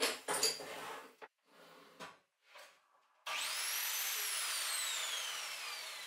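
Mitre saw: a few knocks of wood being handled, then the saw motor starts suddenly with a whine that climbs in pitch. The whine then falls slowly as the blade winds down.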